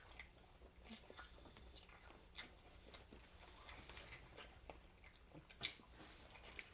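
Faint close-up chewing and mouth sounds of someone eating a taco: scattered soft smacks and clicks, with two sharper ones about two and a half and five and a half seconds in.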